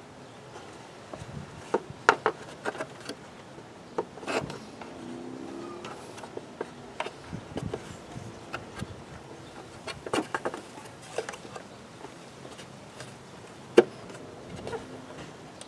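Plastic clicks, taps and rubbing as a cylindrical pleated air filter element is pushed and seated by hand in a plastic airbox. The knocks come irregularly, the sharpest about two seconds in and near the end.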